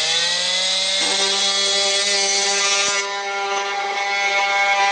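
Rockwell Sonicrafter F30 oscillating multi-tool running with a steady buzz, its pitch still rising as it comes up to speed at the start. Its cutting blade is worked along the surface of a wooden floor board, shaving it down.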